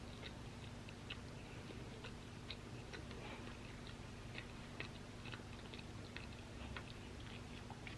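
Close-miked chewing of crunchy waffle fries: irregular small crunching clicks, about two or three a second.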